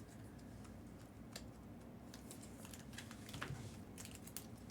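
A few faint, scattered light clicks and taps over a low, steady room hum.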